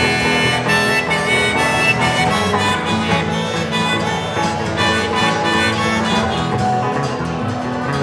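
Live acoustic instrumental break: a harmonica plays a lead line of held and bending notes over two acoustic guitars strumming.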